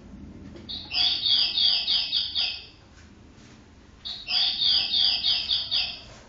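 Bird-song cuckoo clock playing a chirping bird song: two phrases of about seven quick falling chirps each, about two seconds long, with a short pause between.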